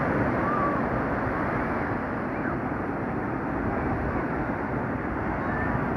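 Rough sea with waves breaking on the beach, a steady heavy rushing noise, with wind on the microphone.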